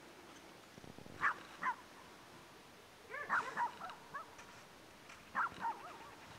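Dogs barking in short groups: two barks about a second in, a quick run of several near the middle, and two more near the end, over a steady low background hiss.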